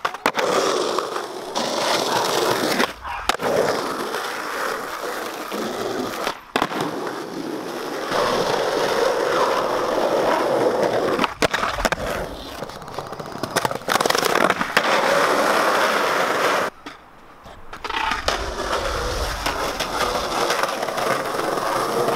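Skateboard wheels rolling over smooth stone paving, with several sharp clacks of the board popping and landing. The rolling breaks off briefly a few times and drops away for about a second around two-thirds of the way through.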